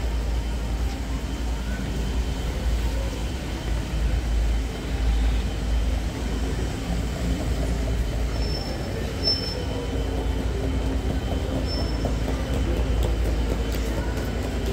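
Steady low rumble of city traffic, with a faint tone that falls slowly in pitch and short high squeals twice about two-thirds of the way through.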